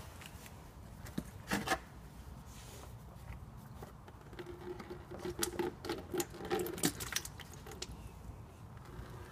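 Oil filter housing cap being unscrewed by hand from the underside of a Toyota RAV4 engine: scattered small clicks and rubbing, busiest in the second half, as the cap turns and the drain bucket is brought up beneath it.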